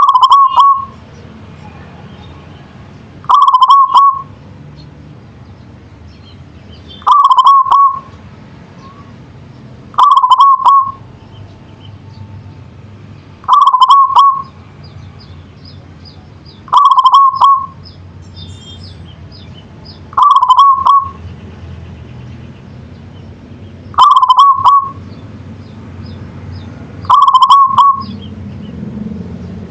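Zebra dove (perkutut) singing its coo song: a short quavering phrase of soft coos, under a second long, repeated about every three and a half seconds, nine times. Faint high chirps from other small birds come between some phrases.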